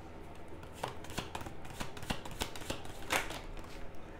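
A deck of divination cards being shuffled and handled: a run of irregular sharp card clicks and short papery rustles, the biggest rustle a little over three seconds in.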